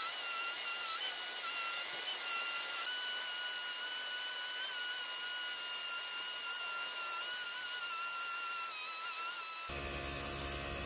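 High-speed electric power tool motor running with a steady, high-pitched whine that wavers slightly, cutting off abruptly near the end, where a low hum takes over.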